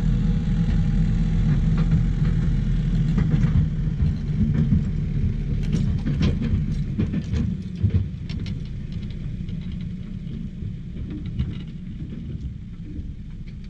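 A steady low engine rumble with scattered knocks and rattles, fading gradually toward the end.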